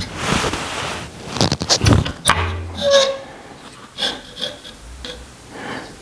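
Derailleur hanger alignment gauge being handled and swung around a bicycle's rear wheel: uneven rubbing and scraping of the tool against the tyre and rim, with several sharp metal clicks and a brief ringing squeak about three seconds in.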